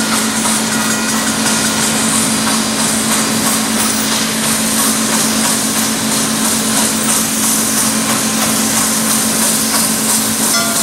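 Nickel Plate Road 765, a Lima-built 2-8-4 Berkshire steam locomotive, approaching under steam: a loud, steady rush of running noise over a constant low hum.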